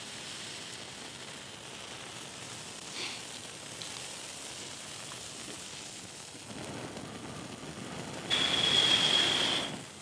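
Zippo stormproof match burning with a faint steady hiss, then a hard breath blown at the flame for about a second and a half near the end, a rushing with a thin high whistle in it; the windproof match stays lit.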